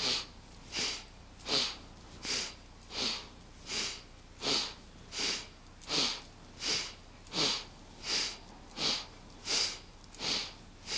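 A woman breathing sharply and strongly through the nose in a fast, even rhythm, about four breaths every three seconds, one breath with each turn of a standing side-to-side spinal twist in Kundalini yoga.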